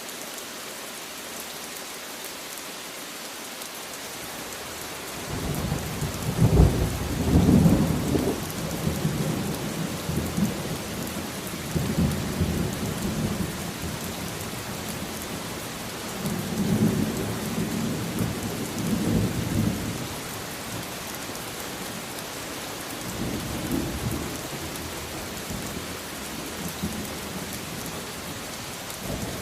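Steady rain falling with rolling thunder. The rumbles start about five seconds in, are loudest soon after, then come back in several fainter waves.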